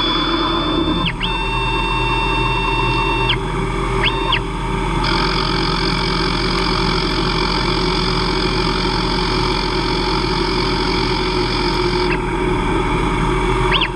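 Hobby CNC lathe turning aluminium at 2500 RPM with a Walter carbide insert. In the first few seconds the axis drive motors whine in high steady tones that start and stop abruptly as the carriage moves. From about five to twelve seconds a steady cutting hiss runs over the spindle's hum, and a short whine returns near the end.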